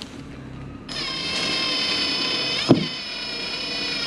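Cordless drill-driver running at a steady whine for about three seconds, driving a screw into an inflatable boat's transom to fix a sonar transducer bracket. It starts about a second in, with one short knock partway through, and stops at the end.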